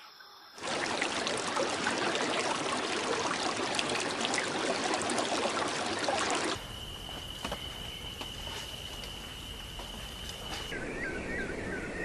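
Running water, a steady trickling stream sound, for about six seconds. It cuts to a quieter stretch with one steady high whistle held for about four seconds, then a quick run of small bird chirps near the end.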